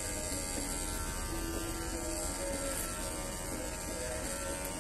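Corded electric hair clipper buzzing steadily as it cuts hair.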